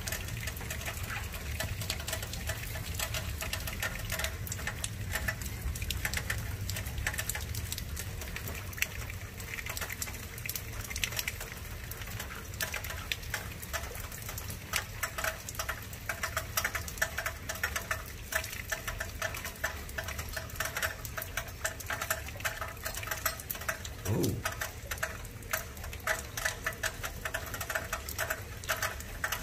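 Heavy, non-stop rain falling steadily, a dense patter of countless drops over a steady low rumble.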